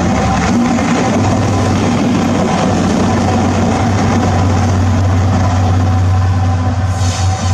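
Colas Rail Class 70 diesel-electric locomotive, its GE PowerHaul V16 engine droning steadily and loudly as it runs light past and away. The low hum breaks off right at the end.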